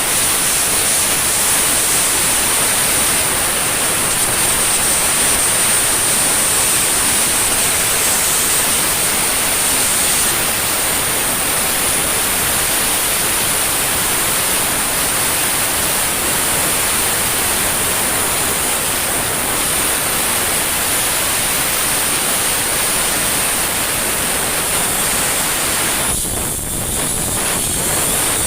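Steady loud hiss of an automatic pipeline welding arc running continuously, with a brief break about two seconds before the end.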